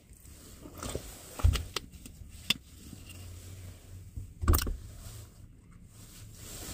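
A few knocks and thumps from objects being handled, the two loudest about a second and a half and four and a half seconds in, with a sharp click between them, over a low steady hum.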